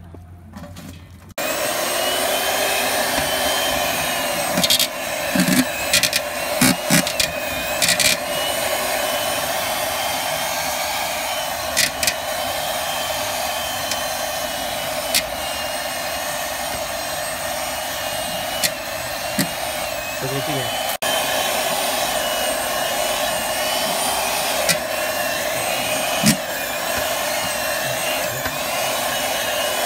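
Electric hand mixer running with its beaters down in boiled chicken in a steel bowl, shredding the meat, switching on about a second in. Its steady motor noise carries a faint wavering whine, with scattered sharp knocks of the beaters against the steel bowl.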